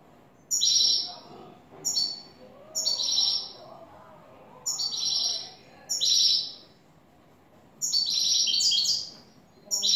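European goldfinch singing: about seven short, bright twittering song phrases, each a second or less and separated by brief pauses, with a longer run about eight seconds in.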